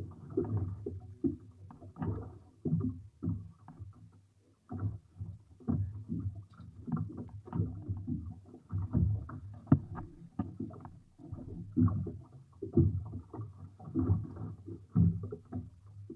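Wind buffeting the microphone and choppy water knocking against a small fishing boat, heard as a run of irregular low thuds.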